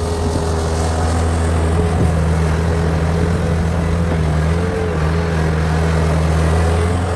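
Heavy construction machine's engine running steadily under a constant load, with a slight dip in pitch a little before five seconds in.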